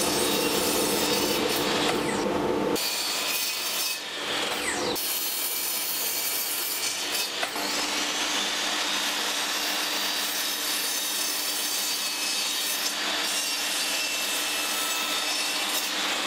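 Sliding mitre saw (chop saw) running and cutting through pine boards, the blade sawing through the wood. The sound changes abruptly twice in the first five seconds, then settles into a steady motor whine under the cut.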